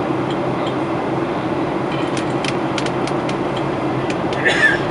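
Steady roar of a Boeing 737-800's CFM56 engines and the airflow, heard inside the passenger cabin from a window seat beside the engine. A few faint ticks come around the middle, and a short, sharp noise comes near the end.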